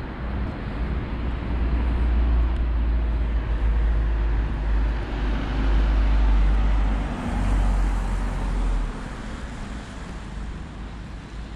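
City street traffic noise with a heavy low rumble that eases off about nine seconds in.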